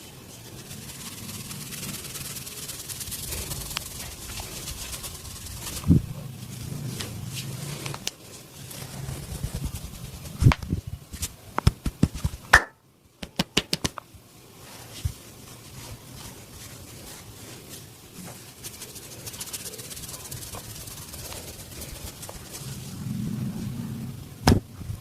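Hands rubbing and kneading during a head massage, with sharp cracks standing out: one about six seconds in, a quick run of them around ten to twelve seconds, and single ones later and near the end.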